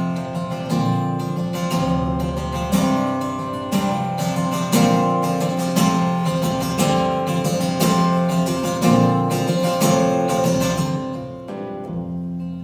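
Solo acoustic guitar strummed in a steady rhythm of chords: an instrumental break between sung verses.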